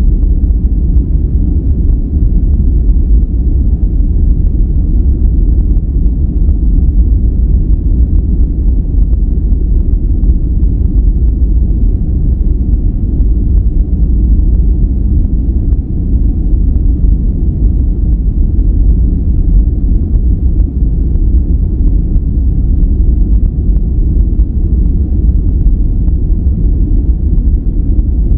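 Continuous relaxation noise track, sold as white noise: a steady, deep rumble with almost no hiss on top, unchanging throughout.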